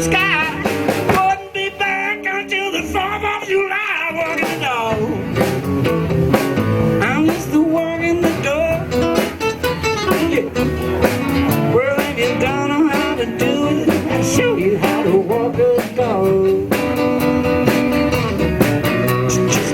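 Live blues band playing an instrumental break: a lead instrument solos in bending, wavering notes over bass, drums and rhythm guitar.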